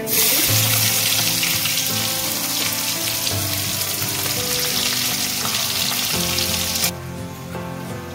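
Sliced onions sizzling loudly in hot oil with panch phoron spices in a kadai, just dropped in to fry. The sizzle starts at once and cuts off suddenly about seven seconds in, with background music underneath.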